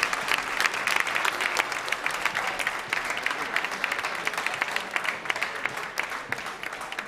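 Audience applauding: a dense patter of many hand claps that eases slightly toward the end.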